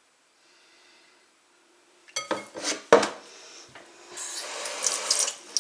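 Kitchen tap water running into the sink while raw chicken pieces are rinsed. After a quiet start come a few knocks and a sharp clunk about three seconds in, then the water runs steadily.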